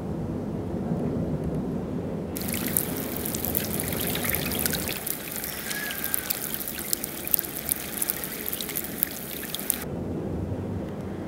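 River water trickling and lapping over wet pebbles and shingle at the water's edge, heard close up as a dense fizz of small crackling clicks. It starts abruptly about two seconds in and cuts off near the end. A low, steady rumble lies underneath throughout.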